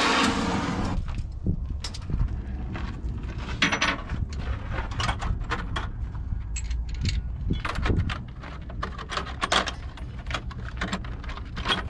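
A cutting torch's hissing flame, used to heat the wheel bearing's roller cage, stops about a second in. After it come scattered sharp metallic clinks and rattles of steel hand tools being handled, over a steady low rumble.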